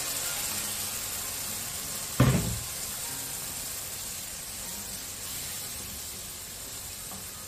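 Pepper sauce sizzling in hot oil in a frying pan, a steady hiss that slowly fades. A single sharp knock about two seconds in.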